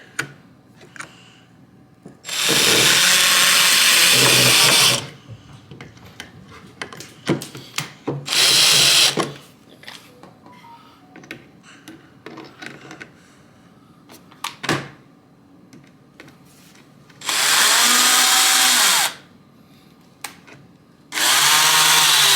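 Power drill driving screws into the shelf's wooden panels: four runs of the motor, one to three seconds each, its pitch dipping as the screw bites. Small clicks and knocks of the parts being handled come in between.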